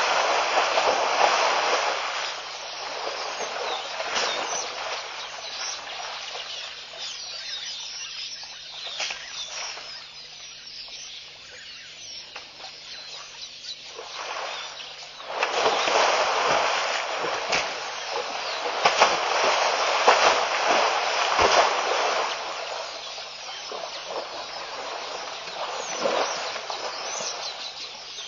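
An African elephant wallowing in wet mud: mud and water splashing and sloshing as it kicks, stirs and throws the mud. The splashing comes in two louder spells, one at the start and one from about halfway in, with quieter stretches between.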